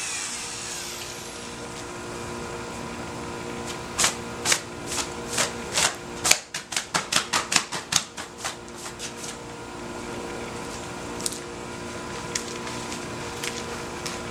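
Router winding down after being switched off, its falling whine fading over the first second or so, over a steady hum. From about four seconds in comes a run of sharp clicks and knocks, a few a second, bunched most closely in the middle, with a few scattered taps near the end.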